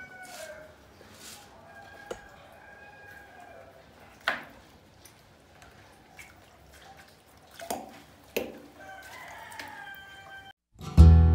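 Chickens calling in the background, a rooster crowing and hens clucking, with three short sharp knocks about four, seven and a half and eight and a half seconds in, the first the loudest. Acoustic guitar music starts just before the end.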